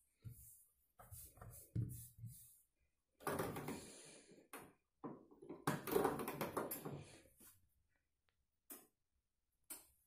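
Front-loading washing machine drum tumbling a jacket through soapy water in the wash cycle: water sloshing and splashing in irregular bursts, with a few short knocks.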